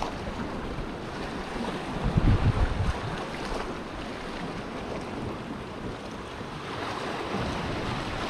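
Sea waves washing against a rocky shore, with wind blowing on the microphone; a louder low rumble of wind buffeting comes about two seconds in and lasts about a second.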